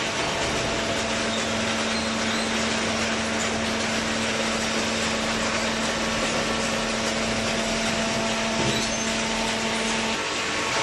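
Hydraulic cardboard baler running: steady machine noise over the hum of its motor and hydraulic pump, with a brief knock late on and the hum dropping out near the end.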